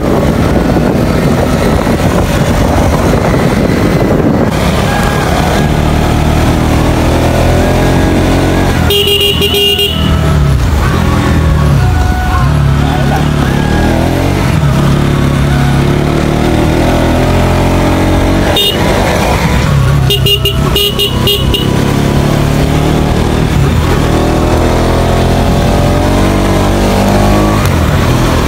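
Motor scooter engine running on the move, its pitch rising and falling with the throttle. A vehicle horn sounds about nine seconds in, then a series of short beeps around twenty seconds in.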